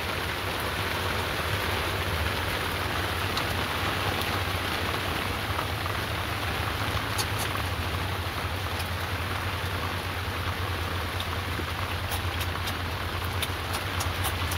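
Steady heavy rain falling on a boat, with scattered sharp drop ticks toward the end. The boat's engine runs steadily underneath as a low hum.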